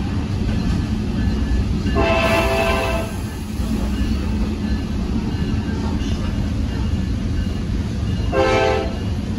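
Tri-Rail commuter train's horn sounding for a grade crossing, heard from inside a passenger coach: a chord blast of about a second about two seconds in, and a shorter blast near the end, over the steady rumble of the moving train.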